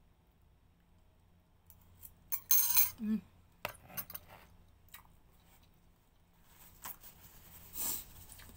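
Scattered clicks of a metal fork and ceramic dishes being handled, with short paper rustles, the last near the end as a tissue wipes the mouth.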